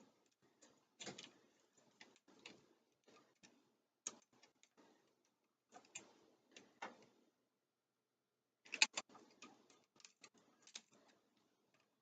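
Faint, scattered clicks and ticks of a screwdriver working a terminal screw on an electrical outlet as the white wire is tightened under it, with a sharper pair of clicks about nine seconds in.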